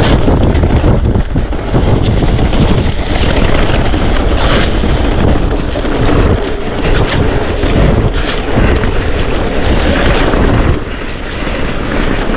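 Wind buffeting the microphone over the rumble and rattle of a mountain bike riding a wet trail, with scattered sharp clicks and knocks.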